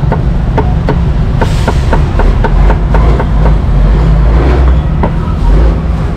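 Cleaver knocking on a round wooden chopping board as small limes are sliced, a quick run of cuts at about three to four a second, over a steady low rumble.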